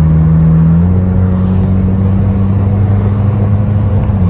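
Honda Civic G9's four-cylinder engine droning deep through an aftermarket electronic muffler with its valve fully open, heard while driving; the pitch steps up about a second in and drops a little near the end. Wind noise through the open windows runs underneath.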